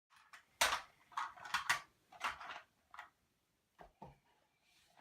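Plastic toy vehicles being handled and knocked together: a quick run of clacks and rattles, then two duller knocks near the end.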